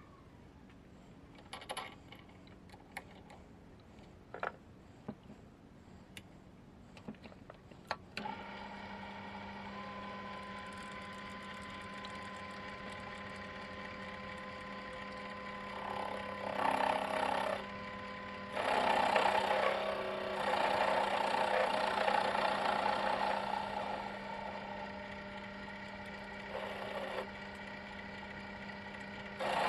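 A few light clicks, then a Proxxon PD 250/E mini lathe's motor starts about eight seconds in and runs with a steady hum. In the second half the turning tool cutting a stainless steel bolt comes and goes in several louder stretches.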